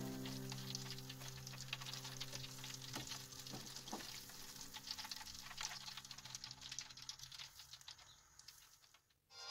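Food sizzling and crackling in hot oil in a pan, a fine continuous crackle with a few sharper pops. It fades out just before the end, under faint background music that dies away about seven seconds in.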